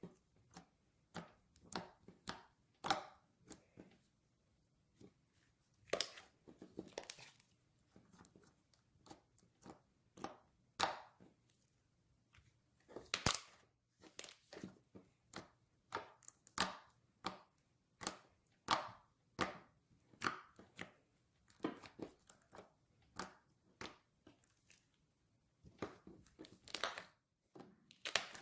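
Homemade glue-and-Tide slime being squished and stretched by hand, giving irregular sticky crackles and pops, one to a few a second.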